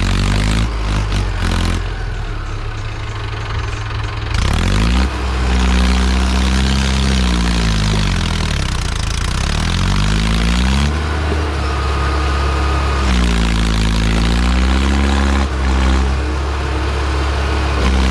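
Mahindra Arjun tractor's diesel engine labouring under heavy load as it hauls a trolley full of soil, its revs rising and falling again and again.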